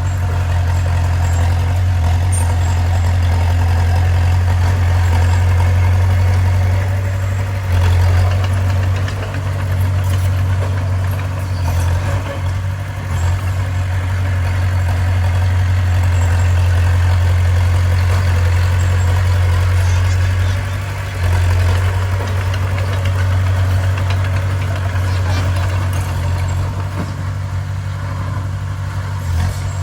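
Bulldozer's heavy diesel engine running steadily as a low drone, briefly louder about eight seconds in and again around twenty-one seconds.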